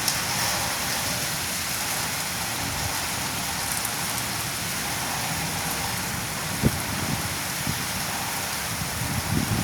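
Rain falling steadily, with one sharp knock almost seven seconds in and a few more low knocks near the end.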